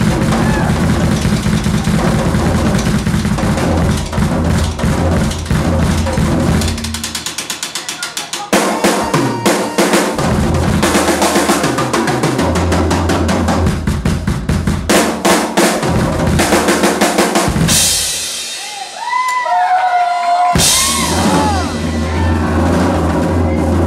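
Live drum kit solo: fast, dense playing across bass drum, snare and toms with cymbal crashes. About a third of the way in it drops to a quicker, quieter roll, then builds back up. Near the end there is a short break with cymbals ringing and a few high sliding tones before the full kit comes back in.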